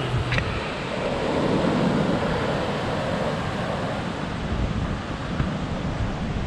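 Ocean surf washing up a sandy beach in a steady rushing wash, with wind buffeting the microphone.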